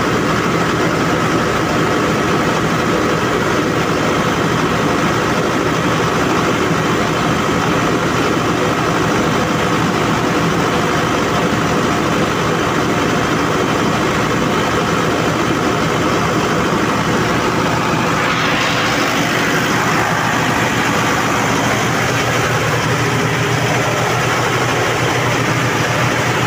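Generator set engine running steadily. A little past two-thirds of the way through, a rushing hiss grows louder over the engine and stays.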